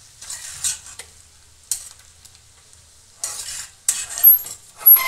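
Metal spatula stirring soaked sago pearls, crushed peanuts and potato in a steel kadai, in irregular scraping strokes that come thicker in the second half. Near the end the spatula strikes the pan with a couple of brief metallic rings.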